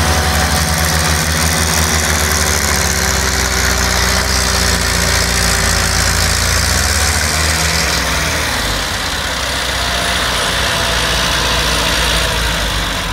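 Diesel tractor engines running steadily while one tractor tows another, stuck tractor by chain. The engine note dips and rises again about six to eight seconds in.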